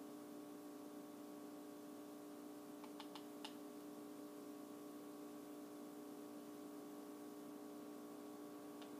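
Quiet room tone with a steady electrical hum, broken by a few faint small clicks about three seconds in and once more near the end.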